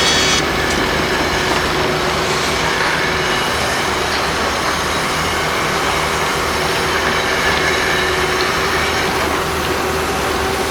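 Loud, steady construction-site machinery noise, with steady high-pitched metallic tones over a dense rumble. Some of the highest tones drop out about half a second in.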